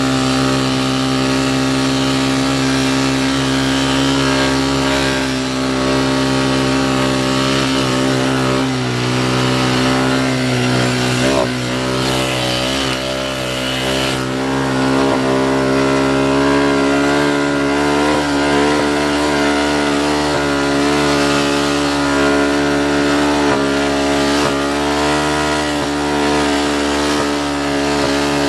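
ATV engine running steadily under way, its pitch shifting only slightly now and then with the throttle.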